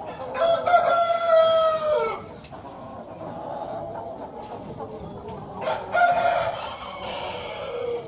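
Broiler breeder roosters crowing twice, each crow about two seconds long and dropping in pitch at the end, over the steady clucking of a chicken flock.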